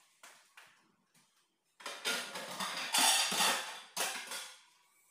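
Pots and pans clattering as cookware is handled and pulled out, after a few faint clicks, with a loud stretch of clanking starting about two seconds in and fading out near the end.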